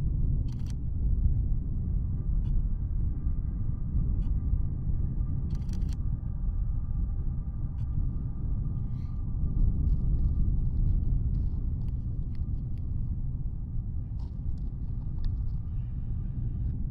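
Freight train rolling past: a steady low rumble of the cars on the rails, with scattered light clicks and a faint thin ring above it.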